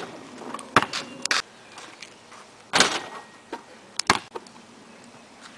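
A basketball bouncing on a concrete driveway: several separate sharp thumps spread over about three and a half seconds, the last two in quick succession.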